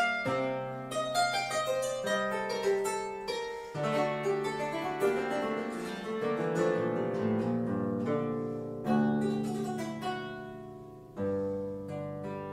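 Italian baroque harp played with both hands: plucked runs of notes over ringing bass notes, with a strong plucked chord about eleven seconds in.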